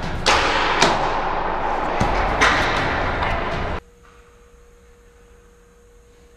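Rushing wind and handling noise on a handheld action camera carried at a run, with several sharp thumps; the loudest come in the first second. About four seconds in it cuts off abruptly to quiet room tone with a faint steady electrical hum.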